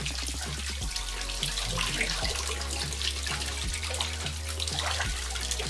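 Shower water running steadily through a bunch of yellow water balloons as they fill, splashing into a bathtub: a continuous hiss of running water.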